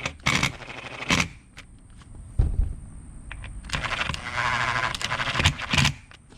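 Small screws on a steering wheel being tightened with a hand tool: scattered clicks and knocks of the tool, then a rapid rattle of clicks lasting about two seconds near the end, with a knock at its close.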